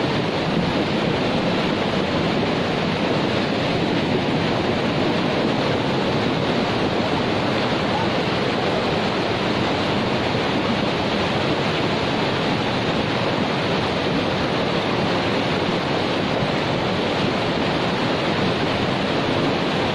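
Rushing floodwater: a steady, unbroken flow of water noise.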